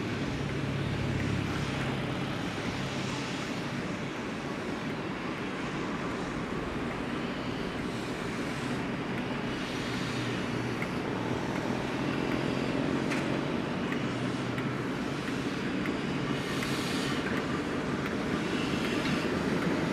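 Class 08 diesel shunter's English Electric six-cylinder engine running with a steady low hum as the locomotive moves slowly along, growing gradually louder as it approaches.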